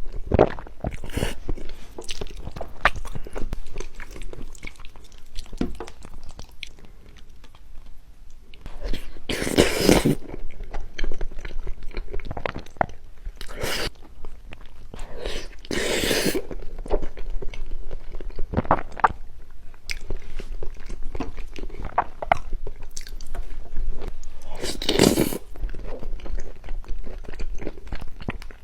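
Close-miked eating sounds: steady chewing with wet, clicky mouth noises and several louder crunchy bites, the loudest about ten seconds in and again near the end.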